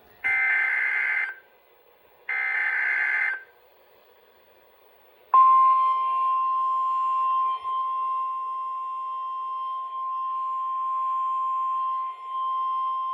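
NOAA Weather Radio required weekly test: the last two of the three buzzy EAS/SAME header data bursts, each about a second long, then about five seconds in the steady single-pitch 1050 Hz warning alarm tone starts and keeps sounding, heard over a weather radio.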